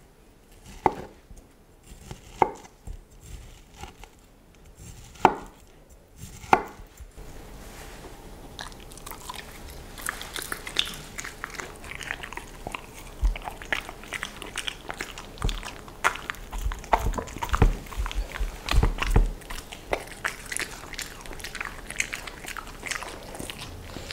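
A kitchen knife cutting dragon fruit on a wooden board, with four sharp knocks in the first seven seconds. Then a Samoyed's close-up wet chewing and lip-licking, crackly, with some low thumps in the middle.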